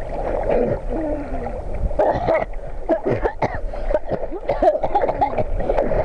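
River water sloshing and gurgling against a camera held right at the waterline, in quick, irregular splashes.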